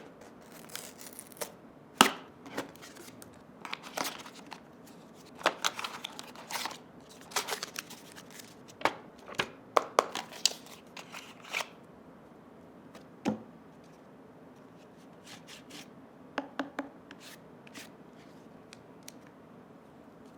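Retail packaging of a small portable speaker being opened and handled by hand: irregular clicks, taps and short rustles, busiest in the first twelve seconds and sparse after that.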